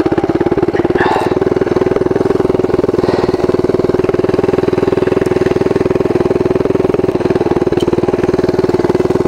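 Mini bike's small single-cylinder engine idling steadily, an even, fast putter with no change in speed.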